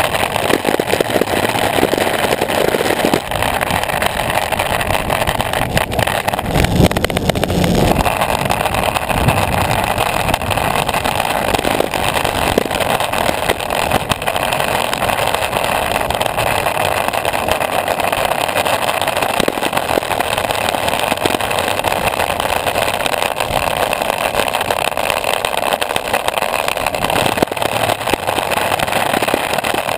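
Longboard wheels rolling over road asphalt, a loud steady rumble close to the board with small clicks from cracks and grit in the surface. About seven seconds in the rumble turns heavier and deeper for a second or two.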